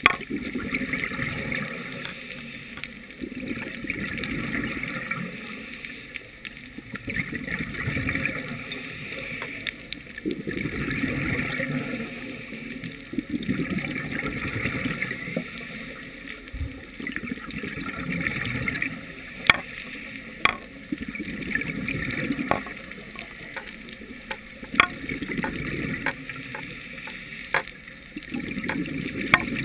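Scuba diver's breathing through a regulator, heard through a GoPro's underwater housing: a gurgling rush of bubbles that swells and falls every few seconds with each breath. A few sharp clicks come in the second half.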